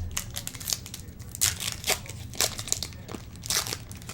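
A trading-card pack wrapper being torn open and crinkled by hand, in several short bursts of crackling rustle. There is a soft thump right at the start.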